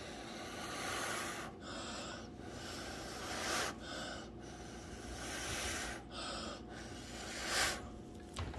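A person blowing hard at close range onto wet acrylic pour paint to push it out from the centre: several long, breathy blows with short breaks between them.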